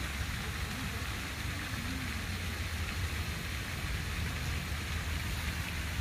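Water fountain splashing steadily, an even rushing noise.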